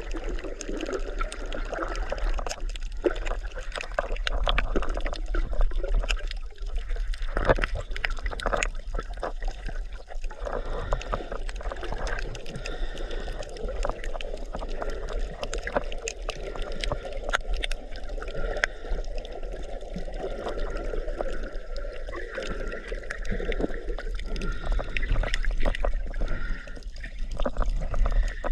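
Water sloshing and gurgling, with many small knocks and clicks throughout.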